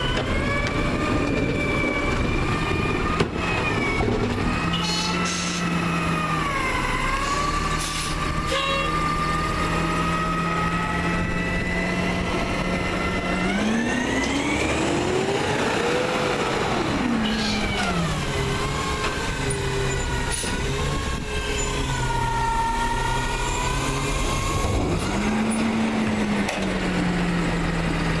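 The CNG engine of a Peterbilt 320 garbage truck running while the hydraulic arm of a McNeilus ZR automated side loader lifts and empties a recycling cart. There is a single bang about three seconds in. About halfway through, the engine revs up and then falls back as the truck pulls ahead to the next cart.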